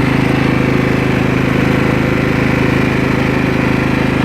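Riding lawn mower's small engine running steadily under way, an even pulsing drone that holds the same pitch throughout.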